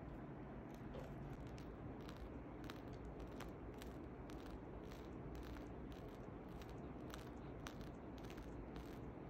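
Faint, irregular crackling of a plastic piping bag being squeezed as whipped cream is piped out through a metal star tip, over a low steady hum.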